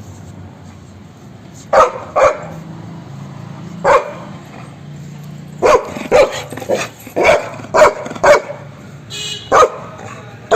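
Dog barking in short, sharp barks while playing at tug-of-war over a towel: a few spaced barks at first, then a quick run of about two a second from about halfway through.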